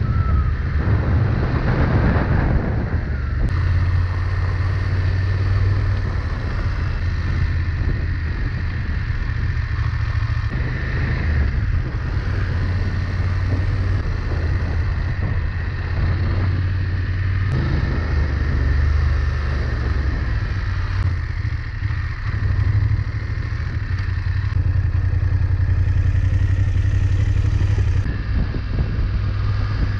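BMW F 850 GS's parallel-twin engine running steadily as the motorcycle rides over gravel and dirt tracks, with tyre and wind noise. The sound changes abruptly several times where clips are cut together.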